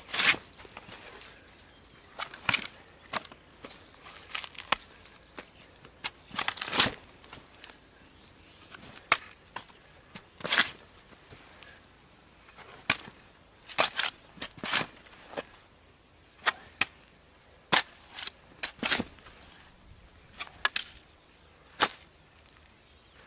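A series of irregular sharp knocks, roughly one a second; a few of them, about a third of the way in and near the middle, are drawn out like a short scrape.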